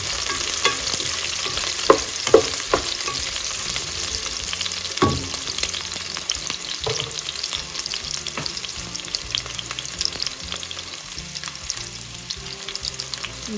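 Chopped garlic and onion sizzling and crackling in hot olive oil in a pan on medium heat, with a few sharp knocks about two and five seconds in.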